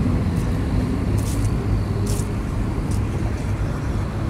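Steady low outdoor rumble, with a few short crunches of footsteps on gravel.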